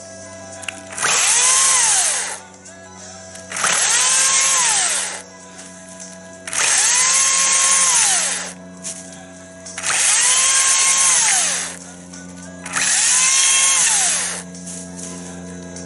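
Battery chainsaw's electric motor whining through five short cuts in a log, each about two seconds long. The whine rises as the trigger is pulled, holds through the cut and falls away on release.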